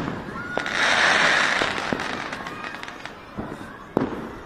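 Fireworks and firecrackers going off: a hissing, crackling spell of many small pops through the first two seconds or so, fading away, then a single sharp bang about four seconds in.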